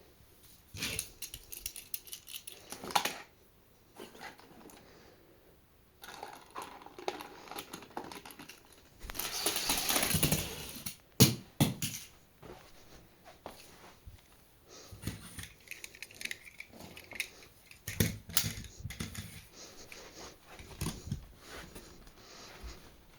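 Die-cast toy cars and their plastic packaging being handled: a string of sharp clicks and clatters, with a longer rushing noise about nine seconds in.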